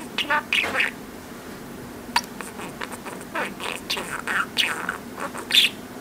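Budgerigar chattering: a rapid run of short chirps, clicks and warbles, with a louder squawk near the end.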